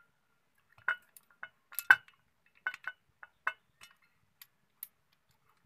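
Steel motorcycle transmission gears and shafts clinking against each other and the aluminium crankcase as the gear cluster is worked into place by hand. A string of sharp, irregular metallic clinks, the loudest about two seconds in.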